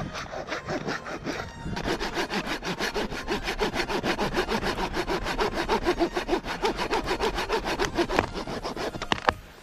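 Hand saw cutting through the base of a standing tree trunk in fast, even back-and-forth strokes. The strokes grow stronger after about two seconds and stop just before the end.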